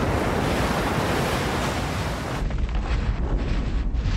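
Churning white water of breaking waves, a dense steady hiss with a deep undertone. About two and a half seconds in it switches abruptly to the deep rumble and scattered crackles of an underwater volcanic eruption.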